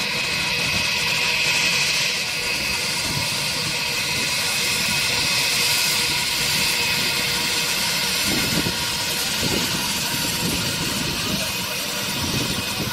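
IAE V2500 turbofans of an Airbus A320 running at taxi idle: a steady jet whine of several held tones over a rushing hiss.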